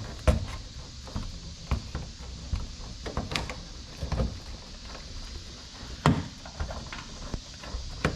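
Hands handling a small 5-pin ignition switch and the dash parts around it: scattered light clicks and knocks. There are two sharper knocks, one just after the start and one about six seconds in.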